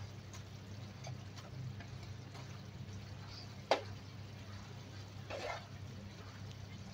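Wooden spatula clicking and scraping against a nonstick frying pan while stirring dough sticks in bubbling sugar syrup, with a steady low hum underneath. One sharp knock comes about halfway through and a short scrape follows a second and a half later.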